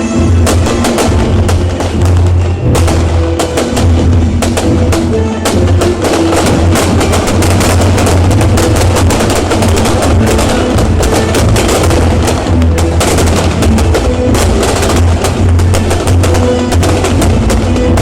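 Loud percussive music: drums beating in a dense rapid run of sharp cracks over a steady low drone, with pitched notes shifting underneath.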